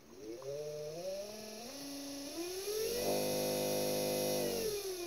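Watersnake T24-SW 24 lb electric trolling motor spinning in the air, not yet on the water, driven through an added PWM speed controller. Its whine rises in steps as the knob is turned up to full power, holds steady at the top for about a second and a half, then drops in pitch as the power is turned back down near the end.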